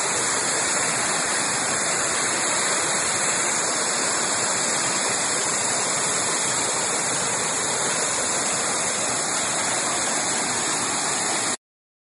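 Small waterfall pouring down a mossy rock face, heard up close: a steady rush of falling water. It cuts off suddenly near the end.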